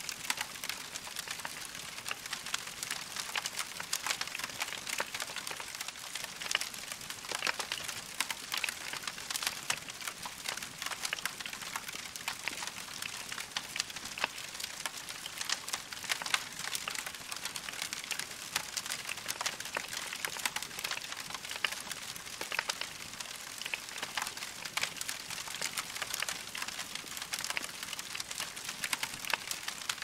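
Wood log fire crackling steadily, a dense run of small snaps and pops over a soft hiss of burning wood.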